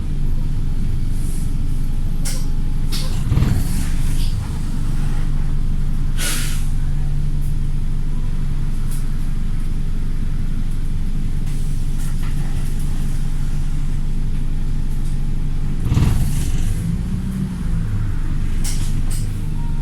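Wright StreetLite single-deck bus's diesel engine running steadily, picking up revs near the end. Short, sharp hisses of air from the bus's air brakes and air system break in several times, the loudest about six seconds in: the bus's known 'sneezing'.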